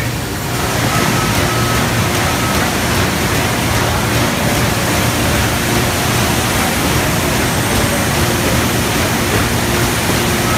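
Imanpack Moonlight PBB horizontal flow-wrapping machine running as it wraps stacks of plastic plates in film: a loud, steady, even noise with a low hum underneath, rising a little about half a second in.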